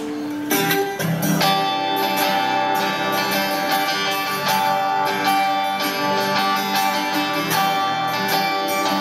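Two acoustic guitars strumming an instrumental passage with a steady rhythm, the strumming coming in strongly about half a second in.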